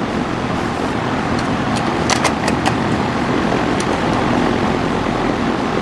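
Steady rushing noise with a few light sharp clicks about two seconds in and again near four seconds, as the mower's oil dipstick is pulled and handled.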